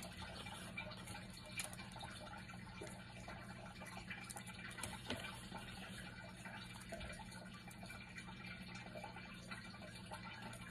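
Faint rustling and light clicks of small paper raffle slips being folded by hand, over a steady low hum.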